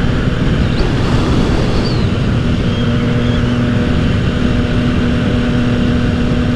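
Triumph motorcycle engine running at a steady cruise, with heavy wind rush over the rider's microphone.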